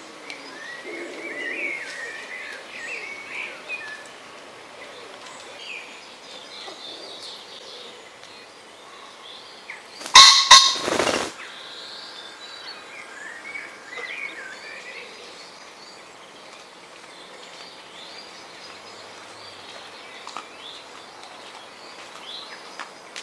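Male common ring-necked pheasant crowing once about ten seconds in: a loud, harsh two-note call that stands well above everything else. Small songbirds chirp faintly around it.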